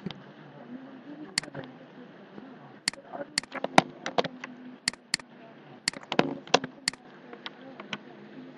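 Computer mouse clicking while navigating files, about a dozen sharp clicks, some in quick pairs like double-clicks, over a steady hiss and hum.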